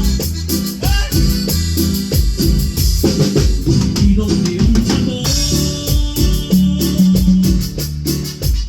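Live band music with a steady, driving beat on a drum kit, a bass line and sustained keyboard chords.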